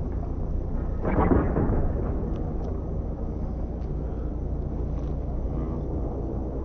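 Wind rumbling and buffeting on the microphone, with a stronger gust about a second in.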